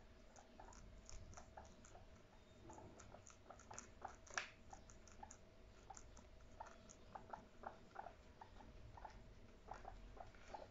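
Guinea pigs crunching lettuce: many small crisp bites and snaps at an uneven pace, the loudest about four seconds in. A faint steady hum underneath.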